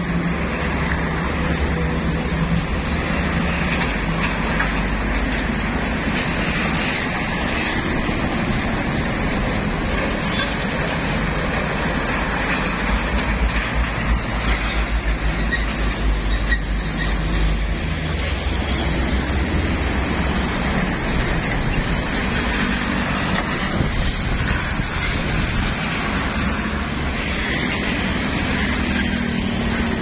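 Busy road traffic: heavy diesel trucks, cars and motorbikes driving past in a steady rumble, with a truck passing close about halfway through.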